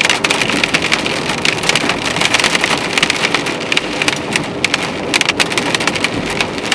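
Heavy hail shower: big hailstones clattering on surfaces, a dense, steady rattle of countless small, hard impacts.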